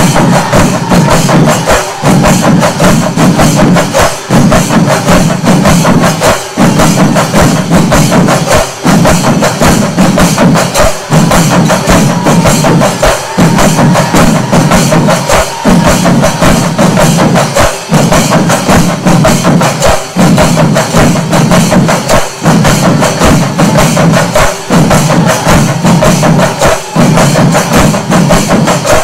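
Music driven by fast, dense percussion, over a low repeating phrase that pauses about every two seconds.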